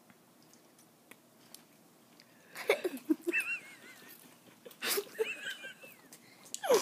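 A man's short low chuckles and a baby's high, wavering squeals, heard twice after a few quiet seconds.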